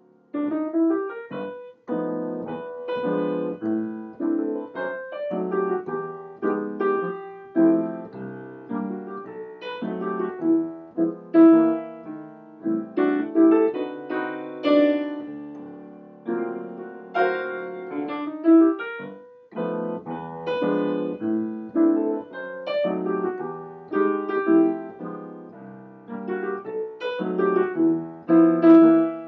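Solo grand piano playing a continuous passage of melody and chords, notes struck and left to ring, starting just after a brief quiet moment.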